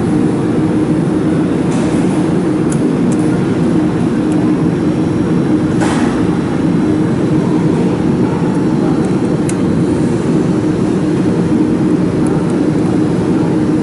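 Steady, loud machine hum with several held low tones, joined by a few faint metallic ticks as a hex key turns the screws on a laser module.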